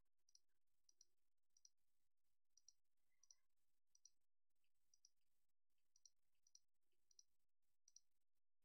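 Faint computer mouse clicks, one roughly every half second and uneven, each selecting the next vertex of a polygon, over near silence.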